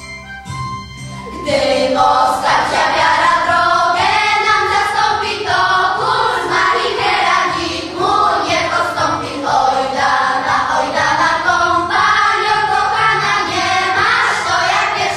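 Children's choir singing over an instrumental accompaniment; the voices come in about a second and a half in, after a short instrumental lead-in.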